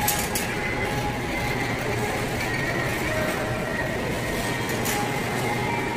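Steady background din of a large store interior, with faint wavering tones in it and a couple of light clicks, one at the start and one about five seconds in.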